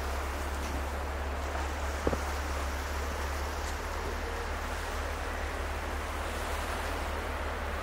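Campfire burning with a steady rushing hiss and one sharp pop of burning wood about two seconds in.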